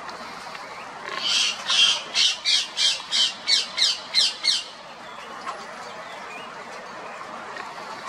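Ring-necked parakeet giving a run of about ten loud, harsh squawks, about three a second, starting about a second in and stopping about halfway through.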